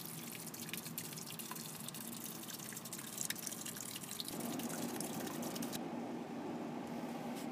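Water from a small solar-powered fountain pump spraying up and falling back into the aquaponics fish tub, a dense patter of drips and splashes. About four seconds in, the patter gives way to a steadier low rushing noise.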